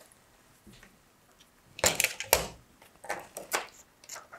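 A handful of light knocks and clicks from hands handling a cardboard model and its small plastic parts. They start about two seconds in, after a nearly quiet stretch.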